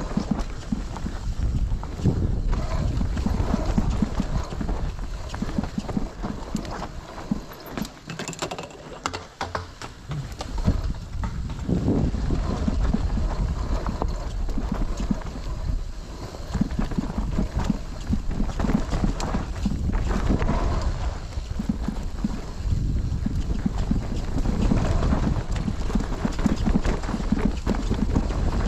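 Mountain bike riding down a rough dirt trail: the tyres crunch and the bike clatters and rattles over the bumps, with wind buffeting the microphone. The rattling eases off briefly about eight seconds in, then picks up again.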